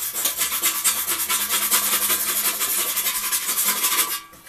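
Rapid back-and-forth rasping strokes of a hand abrading the painted metal of a tractor's dash area, stripping and roughening old paint. The strokes are quick and even and stop suddenly about four seconds in.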